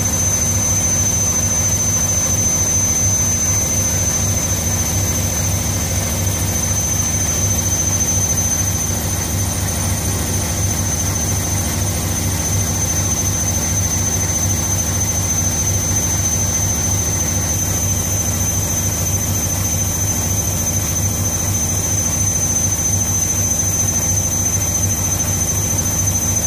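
Beko WM6152W front-loading washing machine on its spin cycle, the drum turning at high speed with a steady low hum and a steady high-pitched whine.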